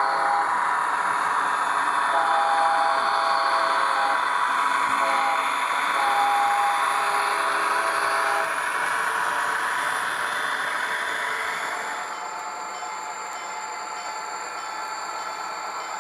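Model EMD SD40-2B diesel locomotive with an ESU LokSound decoder, playing diesel locomotive sound through its onboard speaker. Three long multi-note chords sound in the first eight seconds, and the sound drops quieter about twelve seconds in.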